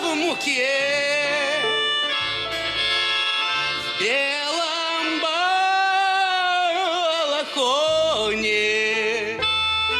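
Acoustic folk-style band playing live: a man singing long, wavering held notes over a plucked upright double bass, with acoustic guitar and harmonica.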